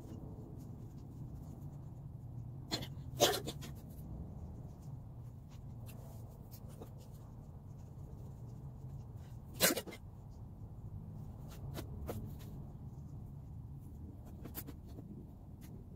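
Two short, sharp noises about six seconds apart, with a few fainter clicks between them, over a steady low background rumble.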